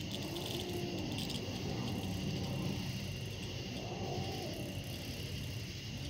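Kitten growling low and continuously, breaking into a rising-and-falling yowl near the start and a higher one about four seconds in. A steady high insect buzz runs underneath.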